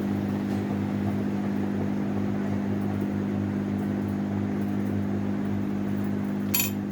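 Hot-air rework gun blowing steadily, a constant hum with airflow hiss, heating the phone's circuit board to melt the solder under a newly placed charging port. A brief click about six and a half seconds in.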